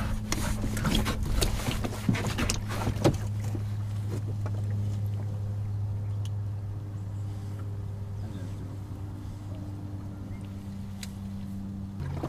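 A small boat motor running with a steady hum, with a few clicks and knocks in the first three seconds, the sharpest about three seconds in.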